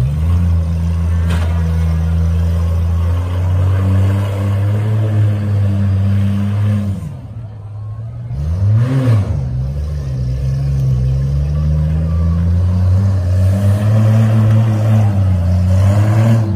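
Demolition derby mini trucks' engines running hard in a steady drone, with a brief drop in level about seven seconds in and then a quick rev up and back down near nine seconds.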